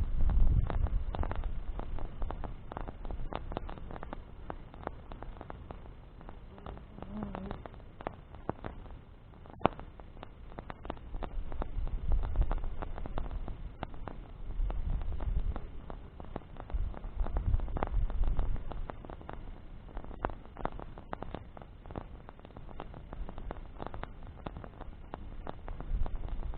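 Wood bonfire crackling, with irregular sharp pops and snaps from burning branches over a soft steady hiss. Gusts of wind rumble on the microphone now and then.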